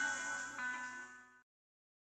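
Intro music with held chords. The chord changes about half a second in, then the music fades out after about a second and a half into silence.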